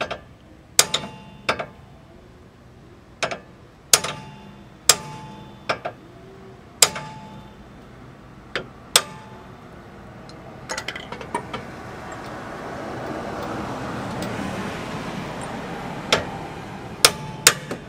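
Hammer blows on the steel steering knuckle, about a dozen sharp, ringing strikes at irregular intervals, to shock loose the old outer tie rod end's tapered stud. Between the blows, a broad rush of noise swells and fades over a few seconds in the middle.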